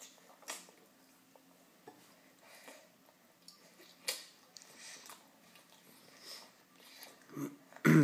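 Baby eating noodles straight off a plate with his mouth: soft wet mouth smacks and scattered little clicks, then a louder short sound from a voice near the end.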